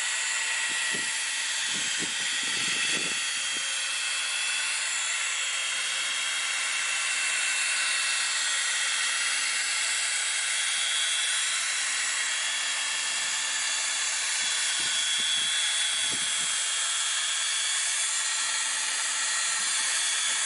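Cordless drill running at a steady speed, spinning a soft 3-inch foam polishing pad against a plastic taillight lens under medium-to-light pressure, in the final polishing-compound stage of a taillight restoration.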